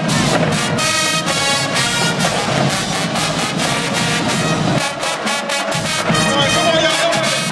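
High school show-style marching band playing loudly: brass section of trumpets, trombones and sousaphones over a drumline keeping a steady beat of hits.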